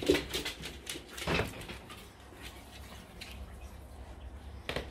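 Footsteps and dogs' paws on a hard floor with a few knocks, the strongest a little over a second in. Then a low steady outdoor background with a single click near the end.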